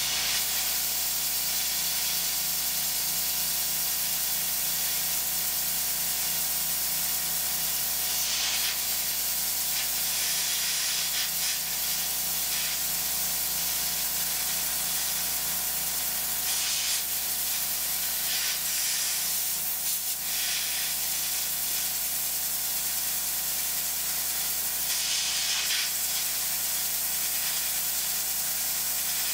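Steady hiss of an air blast aimed at the cutter while a CNC mill cuts a pin hole through a steel AR-15 gas block and barrel. The hiss swells briefly a few times.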